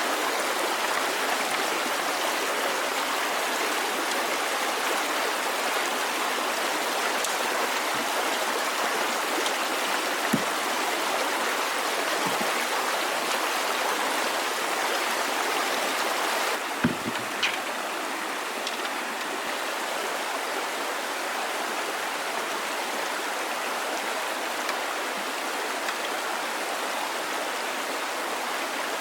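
Steady rushing of flowing water, with a couple of faint knocks about ten and seventeen seconds in.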